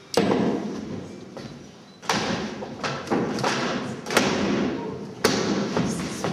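Old wooden skis and ski poles knocking and thumping on a hard floor: a series of sharp thumps, each followed by a long echo in the large hall.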